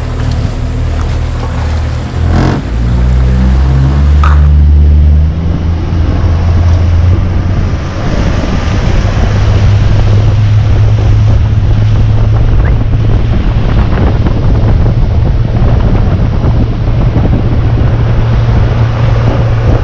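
Boat motor running under way, its low hum stepping up in pitch about two to four seconds in as it speeds up, then holding steady. Wind rushing over the microphone and water hissing along the hull run under it throughout.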